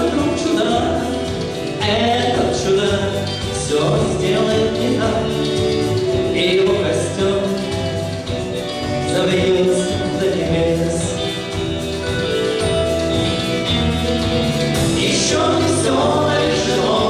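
Music with singing: choir-like voices over sustained instrumental notes.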